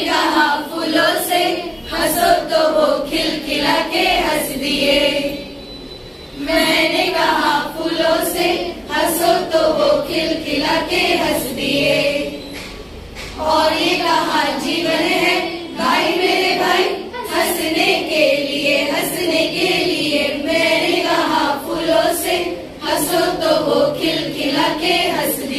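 A group of women singing a song together, in long sung phrases with two short breaks between them.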